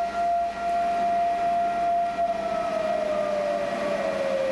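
Air-raid siren holding one steady wailing tone, then slowly winding down in pitch over the last couple of seconds: a civil-defence warning of incoming Scud missiles.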